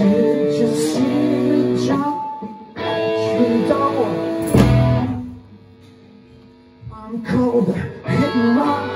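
Live blues-rock band with electric guitar and drums playing in stop-start fashion. It hits a chord and lets it ring for about two seconds, twice, then drops out for about two seconds before kicking back in.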